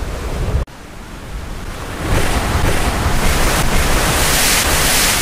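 Ocean surf: a continuous wash of waves that drops away suddenly just under a second in and swells back up about two seconds in.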